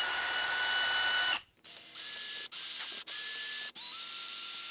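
Hilti SF 2H-A12 cordless drill driver in low gear backing out the housing screws of a Milwaukee impact driver. Its motor whines in short runs that stop and start about five times, rising in pitch as it spins up at each start.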